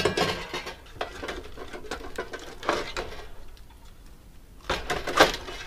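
Steel circular saw blades being lifted off and hung back on pegs of a wall-mounted blade board, clinking and scraping against each other. A sharp clatter at the start, a few lighter knocks, and a louder rattle about five seconds in.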